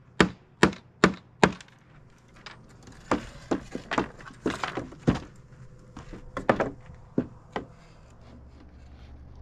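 Hammer driving a nail into wooden planks, four even blows about two a second, then stopping. After a pause comes a run of lighter, irregular knocks and clatter of wood on wood.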